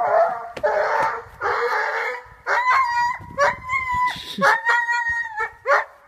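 Animal calls: about two seconds of harsh, noisy calling, then a run of high, drawn-out whining calls, each held at a steady pitch for about half a second.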